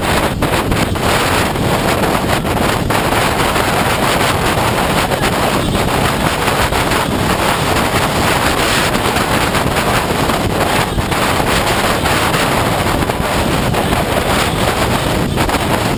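Wind rushing over the microphone of a camera mounted on a motorcycle riding at road speed, steady and loud, with the bike's engine and road noise mixed in beneath it.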